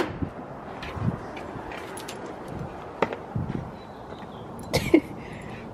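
A sharp click as a car door handle is pulled, then a few scattered light knocks and rustles, about one every second or two.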